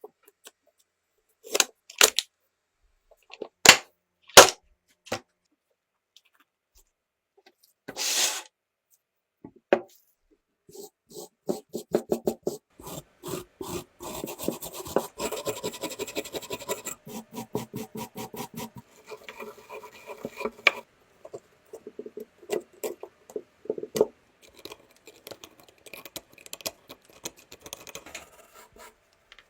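Hand work on a rusty old metal flare gun: a few sharp clicks and knocks of metal parts, then from about a third of the way in a long run of fast scraping strokes, as if rust is being scraped or brushed off, broken by short pauses.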